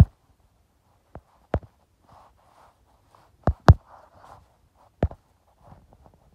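A series of sharp clicks and knocks, about six, irregularly spaced with a close pair midway the loudest: handling noise from the recording phone being moved and tapped.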